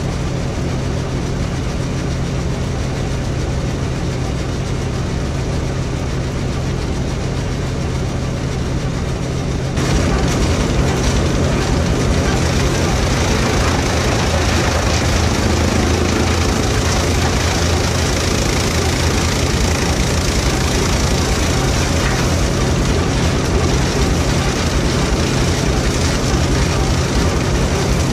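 1941 Farmall H's four-cylinder engine running steadily, turning a Gehl corn chopper through its driveshaft. About a third of the way in the sound jumps louder and harsher as corn stalks go through the chopper and the chopped corn blows out of the spout.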